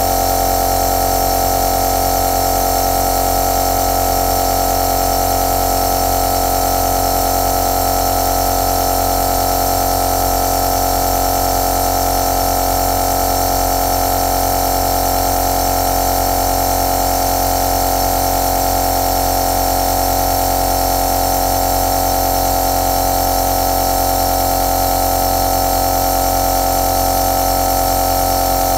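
Compressor nebulizer running steadily: an even, unchanging motor-and-pump hum with a strong mid-pitched tone and a hiss of air above it.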